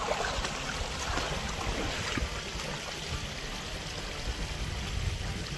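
Steady rushing of water in a concrete irrigation channel, with a few faint knocks and rustles in the first couple of seconds.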